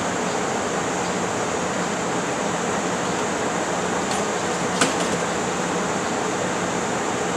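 Steady whirring hum and hiss of a stopped electric train's air-conditioning and auxiliary machinery running at the platform, with one sharp click a little past the middle.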